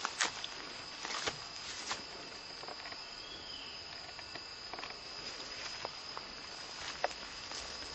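Steady high-pitched drone of insects in the forest, with a few dry crackles of footsteps on leaf and bamboo litter.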